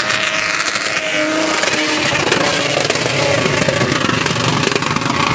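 Engines of off-road 4x4s, a Nissan Patrol and a Toyota Land Cruiser, running hard at high revs as they climb a sand dune, the pitch gliding up and down as they rev.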